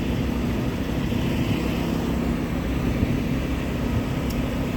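Truck running steadily: a low, even engine hum under a constant rushing noise.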